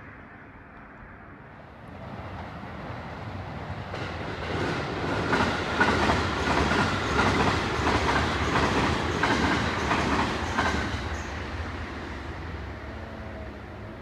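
A train passing: it grows louder from about two seconds in, with wheels clacking rhythmically over rail joints at its loudest in the middle, then fades away near the end.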